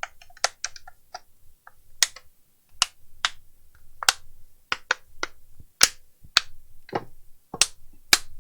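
Clips on the casing of a Samsung T585 tablet snapping into place one after another as it is pressed shut around its edge. About a dozen sharp clicks come at irregular intervals.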